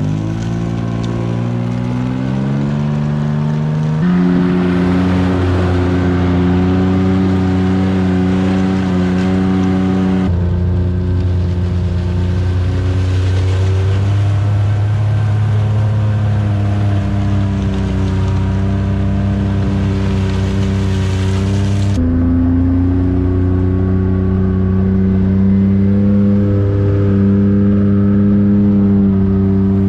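Side-by-side utility vehicle's engine running under load while pulling a chain drag through a muddy yard. The engine note rises over the first few seconds, then holds steady, with sudden jumps in pitch a few times.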